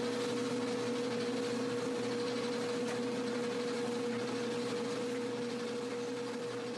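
A steady hum with one held tone over a hiss, fading slowly away.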